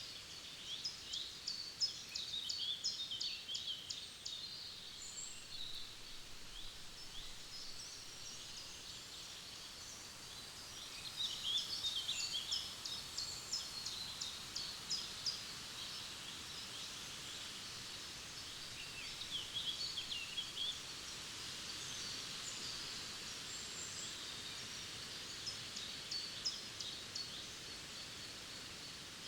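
Small forest songbirds singing and chirping in bouts of rapid high notes: one near the start, another about eleven seconds in, a shorter one around twenty seconds, and a few notes near the end. A steady soft hiss runs underneath.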